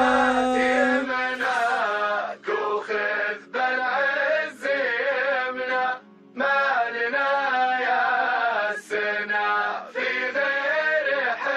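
Arabic patriotic song: a male voice sings long, wavering melodic phrases over a low held drone, with short breaks between phrases, the longest about six seconds in.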